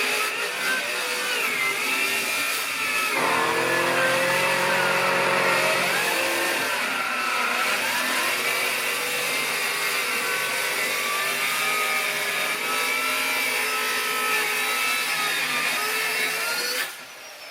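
A motor or engine running loudly and steadily, its pitch wavering up and down over a constant noise. It drops away abruptly near the end.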